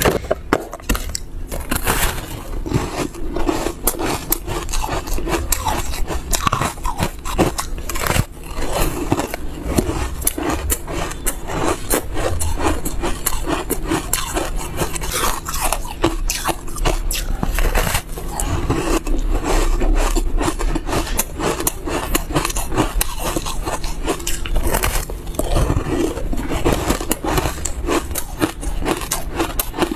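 Ice coated in dry buckwheat powder being bitten and crunched, close to the microphone: a dense, continuous run of crackling crunches and chewing.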